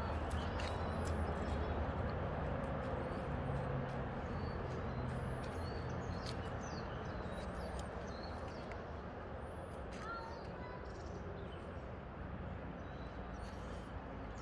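Outdoor ambience: a steady low rumble that slowly fades, with faint high-pitched bird chirps every second or two.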